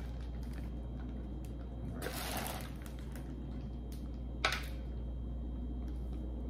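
Clear plastic bags of seafood boil crinkling as they are handled and shaken, in one rustle about two seconds in, with a short sharp sound about halfway through, over a steady low hum.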